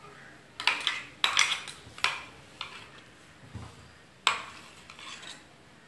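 A metal spoon clinking and scraping against a stainless steel blender jar and mixing bowl while blended masala paste is scraped out. It comes as a series of sharp, separate clinks, the loudest about four seconds in.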